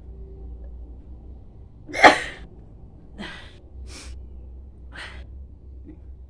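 A woman sneezes once, loudly, about two seconds in. Three shorter breathy sniffs or breaths follow, about a second apart.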